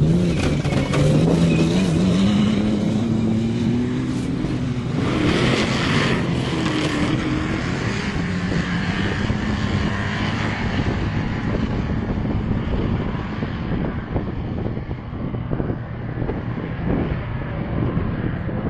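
Off-road race vehicle's engine under power, its note rising over the first few seconds. A loud rushing noise comes about five seconds in, as the vehicle passes close. The engine then holds a steady drone that slowly fades.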